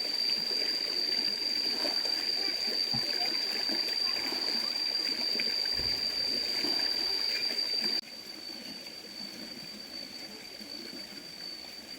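Water trickling and splashing in a stream, over a steady high-pitched tone. The sound becomes quieter abruptly about two-thirds of the way through.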